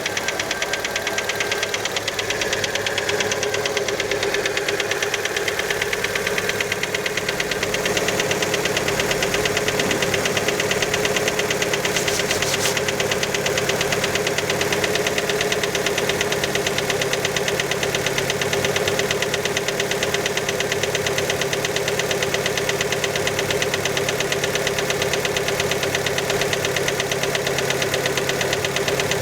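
Fiat Panda engine running cold just after starting, with a fast, steady knock in time with the engine, which many take for piston skirt slap.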